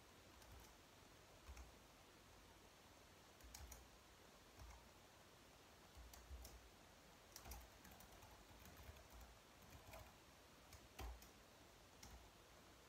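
Faint typing on a slim white low-profile computer keyboard: scattered clusters of soft key clicks with short pauses between them.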